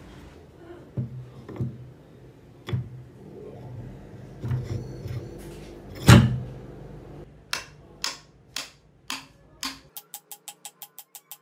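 Steel adze head being seated on its wooden handle, the handle knocked end-down on a wooden bench: a series of separate knocks, the loudest about six seconds in, the later ones sharper and ringing. A fast, even run of light ticks starts near the end.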